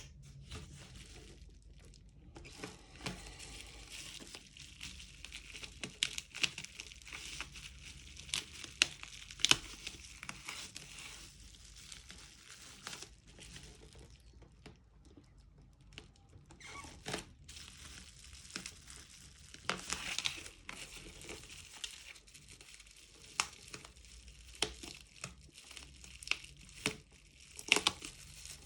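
Packaging being handled and unwrapped, crinkling and tearing with many irregular sharp rustles and clicks. The rustling is busiest in the first third and again near the end.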